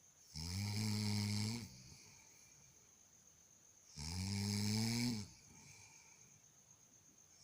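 Snoring: two long, low, rattling snores about three and a half seconds apart, each rising slightly in pitch at the end, with quiet breathing between.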